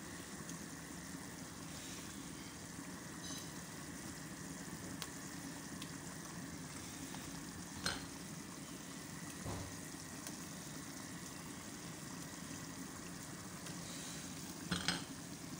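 Large pot of fried tomato stew simmering on the stove, a steady quiet sizzle and bubble. A faint click comes about eight seconds in and a short cluster of clicks near the end.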